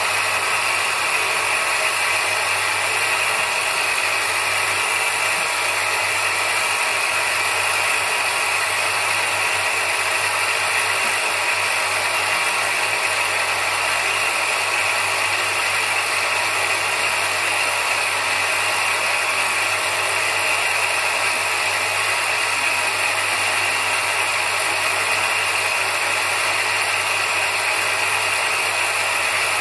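Electric bench grinder running steadily, a bacan agate stone held against its spinning polishing wheel. A constant motor hum under a steady high-pitched whir.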